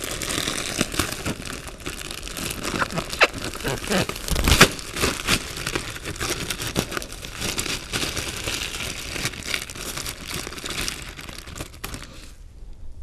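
Ice cubes being scooped out of a plastic ice bag: the plastic crinkling and rustling, with many sharp clicks and knocks of ice cubes, dying down near the end.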